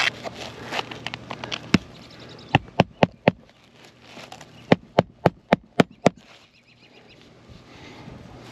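Hammer driving roofing nails into old asphalt shingles: a single strike, then a quick run of four, then six more at about four strikes a second. The shingles are old and brittle, and the nails pull back out through them.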